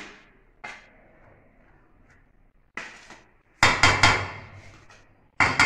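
A plastic spatula and cutting board knock against a stainless steel bowl as chopped onion is scraped off the board into it. Separate sharp knocks come early on, then a quick run of three about four seconds in and one more near the end.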